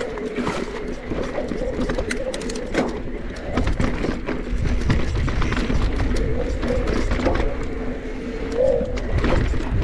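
Specialized Turbo Levo electric mountain bike's mid-drive motor whining steadily under pedalling. Bike parts rattle with sharp clicks over the rough trail. A low rumble of wind and ground noise grows louder about a third of the way in.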